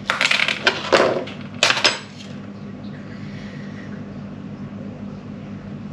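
Clatter and rustle of a plastic yogurt tub and kitchen utensils being handled on a worktop, with a couple of sharp knocks in the first two seconds. After that there is only a steady low hum.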